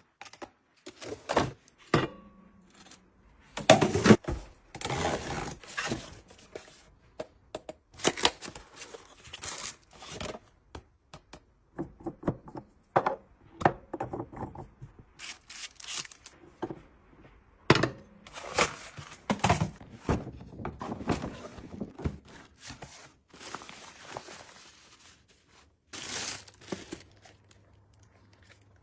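Household supplies being handled and put away: irregular thunks and knocks of items being set down, with stretches of rustling and scraping of packaging.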